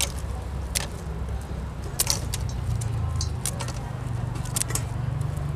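Kitchen scissors snipping through raw blue swimmer crab shell over a metal bowl, giving a series of sharp, irregular clicks and crunches. A steady low hum runs underneath.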